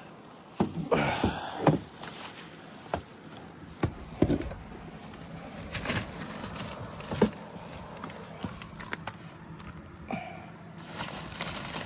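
Tire-repair tools and supplies being handled and packed together: a burst of rustling and clatter about a second in, then scattered clicks and knocks.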